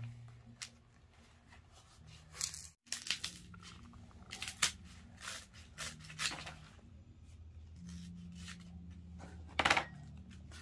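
Handling noises: a string of short rustles and tearing sounds, two of them louder, about four and a half and nine and a half seconds in, over a faint low hum.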